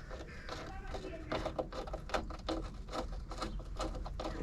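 Hand work on a car's brake hose and its fittings: a run of light clicks, knocks and scraping as the hose and metal parts are handled and fed into place.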